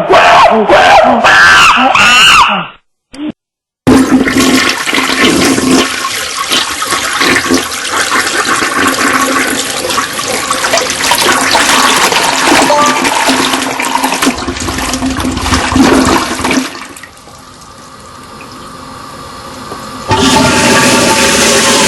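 A string of short sound-effect clips. The longest, from about four seconds in until about seventeen seconds, is a loud, even rush of water.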